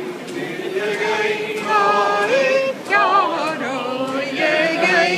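A group of men and women singing a Scottish Gaelic milling song together, unaccompanied, in a steady rhythm. Faint regular thumps come from the wool cloth being beaten on the tables in time with the song.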